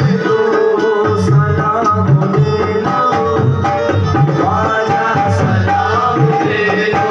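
Qawwali music: harmoniums sustaining the melody over a steady, fast tabla rhythm, with voices singing.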